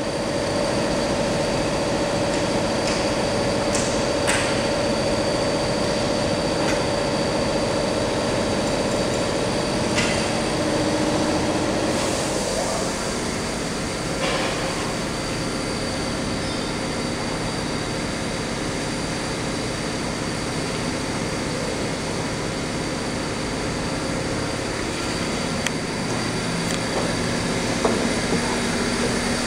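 Steady industrial machinery running: a continuous hum with a few sharp clicks.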